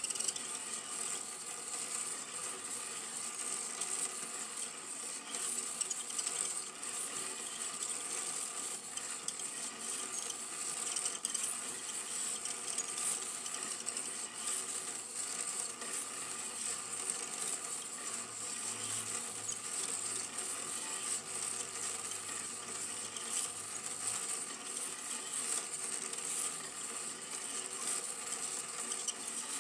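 Super 8 film projector running: a steady mechanical clatter from the film-advance mechanism with a high hiss.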